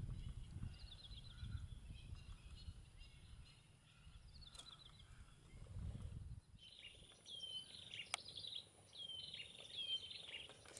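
Wild birds calling faintly. Rapid series of short high chirps come first over a low rumble, and about two-thirds of the way through come clearer, repeated high calls that drop in pitch.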